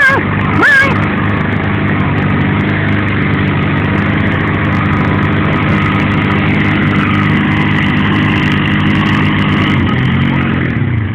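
Polaris Sportsman 500 and Arctic Cat 650 ATV engines running at steady high revs under full load, pulling against each other in a tug of war with their wheels spinning. Near the end the revs fall away and the engines throttle back.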